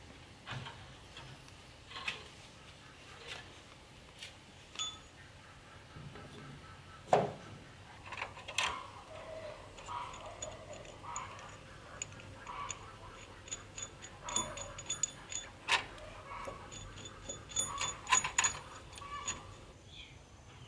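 Irregular knocks and clicks of handling and work, some with a short metallic ring, the loudest about seven seconds in.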